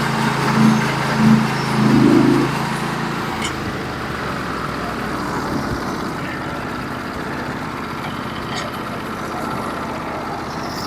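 Portable bandsaw sawmill's engine and band blade running through a white oak log, fed slowly by hand. About three seconds in the sound drops to a lower, steadier run.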